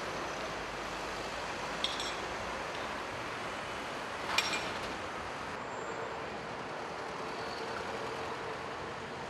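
Street traffic noise as cars drive past, with two short clinks, the second one ringing briefly.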